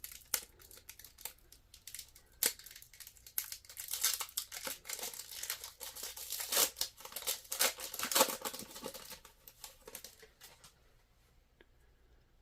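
A trading card pack's wrapper crinkling and tearing as it is opened, with a dense run of crackles and clicks from the wrapper and cards being handled; it stops about 11 seconds in.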